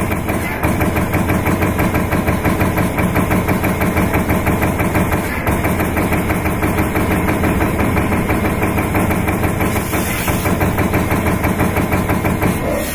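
Metal stamping press running, a fast, even rhythm of mechanical strokes over a steady motor hum.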